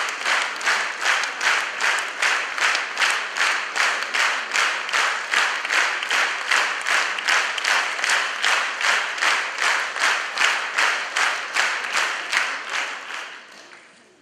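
Concert audience clapping in unison, a steady rhythm of about three claps a second, dying away near the end.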